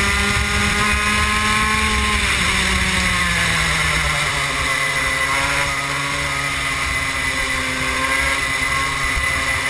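Onboard sound of a 125cc two-stroke racing kart engine at speed. Its revs drop over a second or two, about two seconds in, then run steadily at a lower pitch.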